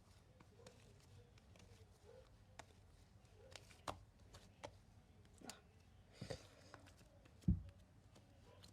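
Hands working an underactivated, sticky marshmallow slime, making faint scattered sticky clicks and small pops, with a short crackle a little past the middle and a dull thump near the end.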